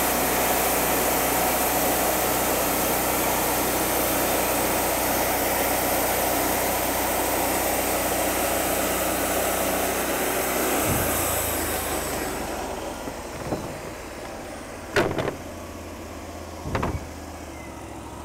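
Engine-driven Wood-Mizer bandsaw sawmill cutting through a log: a steady, loud mix of engine and band blade hiss. About twelve seconds in the cut ends and the sound drops to the lower hum of the engine running on, with three sharp knocks after it.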